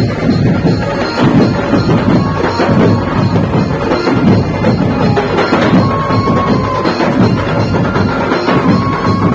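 Dhumal band playing loud procession music over its sound system: dense, driving drumming, with a held melody note breaking in now and then.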